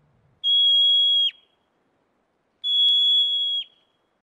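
Marmot alarm whistles: two high calls about a second long, about two seconds apart, each held on one pitch and dropping sharply at the end.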